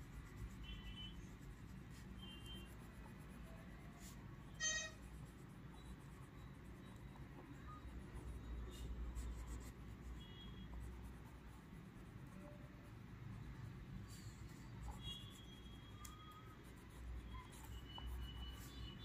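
Wax crayon rubbing faintly on notebook paper as a picture is coloured in. A brief high-pitched squeak stands out about five seconds in.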